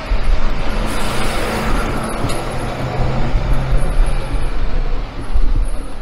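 City road traffic with a bus running past, a broad rush swelling about a second in and a steady low engine hum in the middle seconds.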